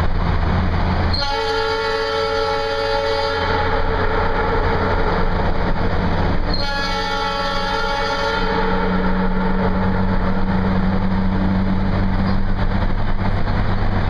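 Two long blasts of a Nathan triple-tone air train horn, sounding two of its chimes as a chord, the first about a second in and the second about six and a half seconds in, each ringing on and fading in the tunnel. A car's engine hums steadily underneath.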